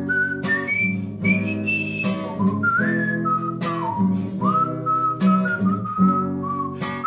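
Acoustic guitar strumming chords about every one and a half seconds, with a melody whistled over it that slides between notes.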